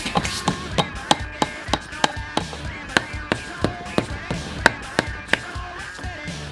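Steady light hammer taps driving a new rear output seal into a Dana 20 transfer case, about three strikes a second.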